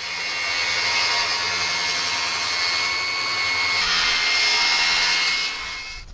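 Milwaukee M18 FUEL cordless circular saw running and cutting through a board, a steady motor whine under the blade noise, dying away near the end.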